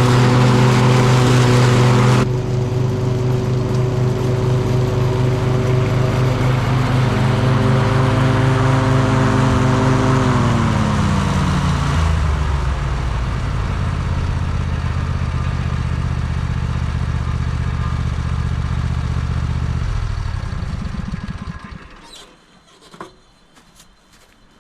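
Craftsman riding lawn mower's engine running, with its pitch dropping to a lower speed around ten to twelve seconds in and the engine shutting off a little after twenty seconds, followed by a few faint clicks. It runs on newly fitted pulleys with bearings, which the owner says make it sound a lot better.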